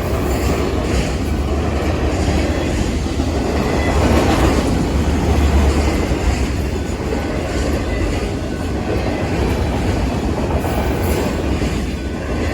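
Freight train of autorack cars rolling past at close range: a steady rumble with the wheels clicking over the rail joints.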